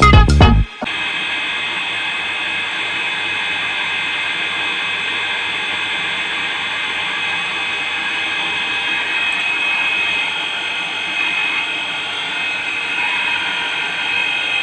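Electric water pump motor running steadily, a constant hum with a high whine. The tail end of a music clip cuts off under a second in.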